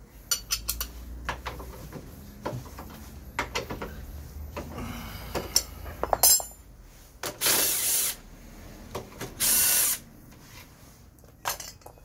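Hand tools clicking and clattering against a scooter's front disc brake caliper as it is unbolted for a pad change, with a quick run of ratchet-like clicks at the start and a metallic rattle about five seconds in. Two short bursts of hiss come about seven and a half and nine and a half seconds in, each under a second.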